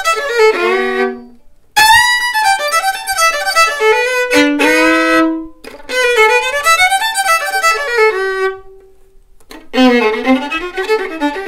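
Solo fiddle, bowed, playing short runs of quick notes in separate phrases; several phrases end on a held lower note, with two brief pauses between them.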